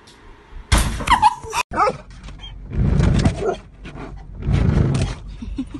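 A sudden loud clattering noise about a second in, then a dog barking in repeated bursts inside a car.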